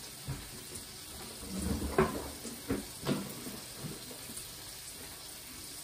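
A few light knocks and clatters as a wooden cutting board and kitchen things are handled, bunched between about one and a half and four seconds in. Under them runs a faint steady frying sizzle from a pan of sausage and eggplant.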